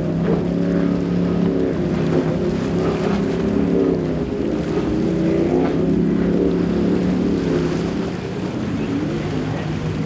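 Offshore V-bottom race boat running at full speed, its engines giving a loud, steady multi-tone drone with small shifts in pitch, a little quieter near the end.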